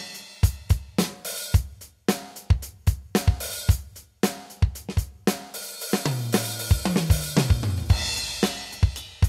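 Casio LK-S450 keyboard's built-in drum kit sounds: kick, snare, hi-hat and cymbal hits in a steady beat, with a fill of tom hits falling in pitch a little past the middle.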